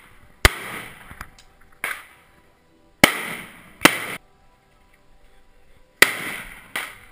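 Rifle gunshots: about five single shots at an uneven pace, each followed by a short echoing tail.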